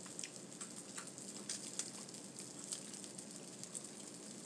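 A person chewing crispy fried food close to the microphone: scattered small crunches and mouth clicks over a steady hiss.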